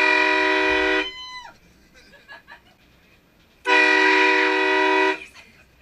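Train horn blasted twice. The first blast cuts off about a second in, its pitch sagging briefly as it stops. A second blast of about a second and a half comes near the end.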